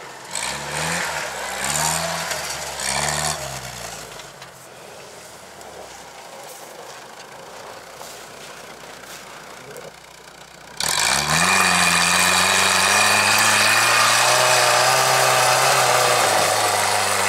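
Off-road vehicle engine revving in short repeated rising pulls, then dropping to a faint drone. About eleven seconds in, a loud engine running close by cuts in suddenly and holds steady with small changes in pitch.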